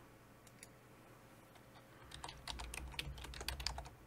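Computer keyboard typing: a few scattered key clicks, then a quick run of keystrokes in the second half as a short phrase is typed.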